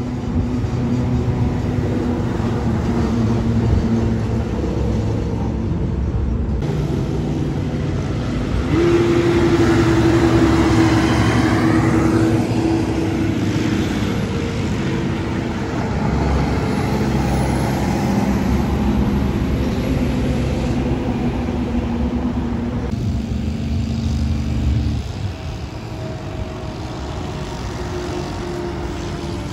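Heavy diesel trucks, dump trucks among them, driving past on a highway: engines running with tyre and road noise. One engine's note rises as it passes, and the sound changes abruptly twice between separate passes.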